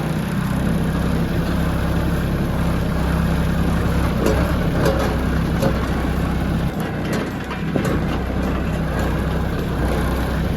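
Kubota tractor's diesel engine running steadily while driving, with scattered rattles and knocks as the open-station tractor bounces over rough ground carrying a bale.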